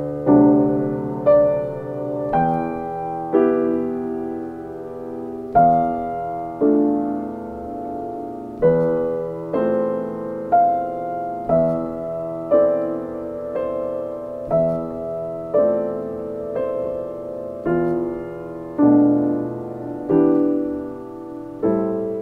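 Background piano music: a slow piece with notes or chords struck about once a second, each fading away before the next.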